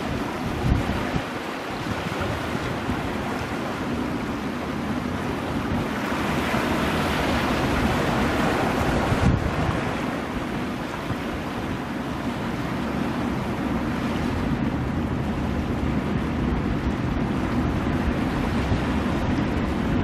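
Ocean surf washing in over rocks, a continuous rushing that swells for a few seconds around the middle. Wind buffets the microphone near the start.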